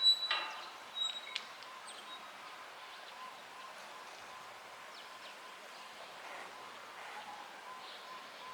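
Faint outdoor background noise, with a few short high chirps near the start.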